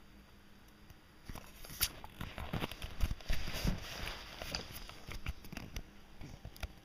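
Handling noise from a camera being carried and moved about: irregular knocks, taps and rustling, busiest from about a second and a half in to near the end.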